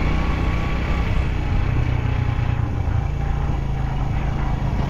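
A vehicle engine running steadily, with an even low hum.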